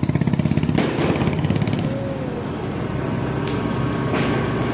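Motorcycle engine running with a rapid, even putter that fades away about two seconds in, leaving steady street traffic noise.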